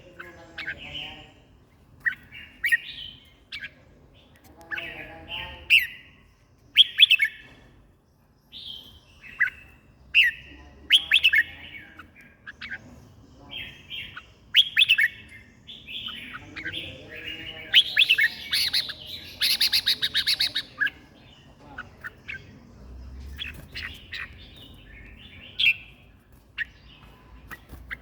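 Red-whiskered bulbul singing, a caged songbird giving short, bright warbled phrases over and over, a second or so apart. The song comes denser and louder for a few seconds around the middle.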